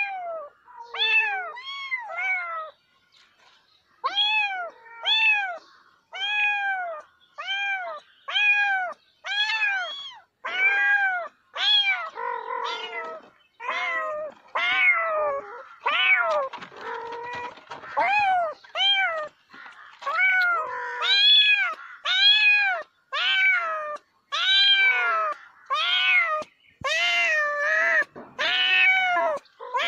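Domestic cat meowing over and over, a long run of short meows that each rise and fall in pitch, coming about once a second. There is a pause about three seconds in, and around the middle the calls crowd together and overlap.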